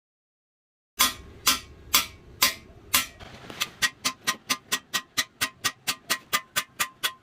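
Hammer striking a steel driver in a metal engine block with a ringing clang, about two blows a second at first and then a quicker run of about four to five a second: cam bearings being driven out of the block.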